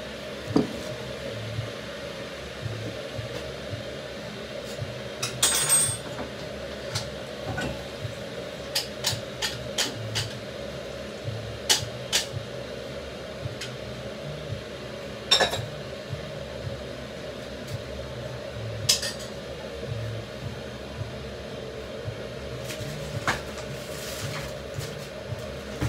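Kitchen clatter: scattered clinks and knocks of crockery and cutlery being handled, with a steady hum underneath.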